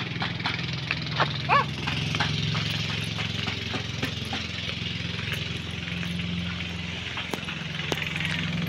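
A small engine running steadily at a low, even hum under outdoor background noise, with scattered light clicks and a short rising-and-falling call about a second and a half in.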